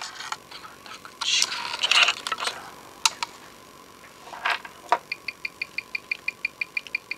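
Clicks and knocks of a wristwatch being clamped into a timegrapher's microphone stand, then, from about five seconds in, the even ticking of the watch's ETA automatic movement as picked up by the timegrapher, about six ticks a second (21,600 beats an hour).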